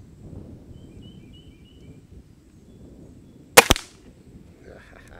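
A single shot from a Gamo Swarm Maxxim .22 break-barrel air rifle with an IGT gas ram, about three and a half seconds in: a sharp crack followed a split second later by a second, smaller crack. Faint bird chirps are heard earlier.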